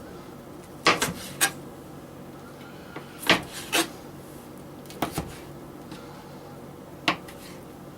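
Kitchen knife cutting a piece of vegetable on a cutting board: about eight short, sharp chops and slices at uneven spacing.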